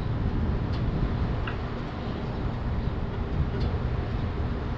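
Motorcycle engine idling with a steady low rumble.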